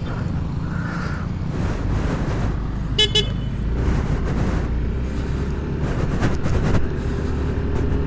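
Road noise from riding a scooter in traffic: a steady low rumble of wind and engine, with one short vehicle-horn beep about three seconds in.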